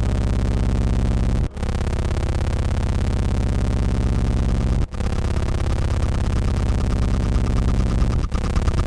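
Electronic noise drone: a dense low hum with several steady pitched layers, cut by brief dropouts about every three and a half seconds. A fast pulsing flutter comes in higher up near the end.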